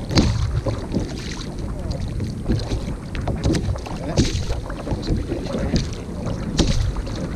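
Wind buffeting the microphone over choppy water lapping and splashing against a kayak's hull, with scattered small knocks and splashes throughout.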